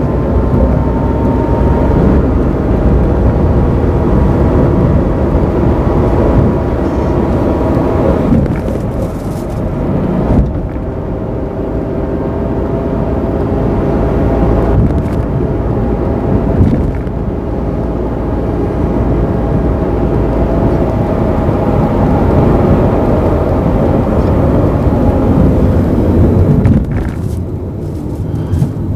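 Mazda AZ-Wagon MJ23S kei car running, its engine and manual transmission sounding steadily, with the transmission's abnormal noise (異音) that the owner is presenting. The sound drops briefly about nine seconds in and again near the end.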